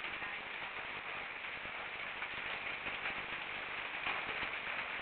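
Steady hiss with a fine crackle, even throughout and with no distinct events standing out.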